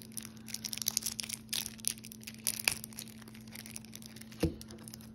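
Plastic shrink wrap on a deck of playing cards crackling and tearing as fingers pick it open, with a dense run of crackles in the first few seconds, then a single knock near the end.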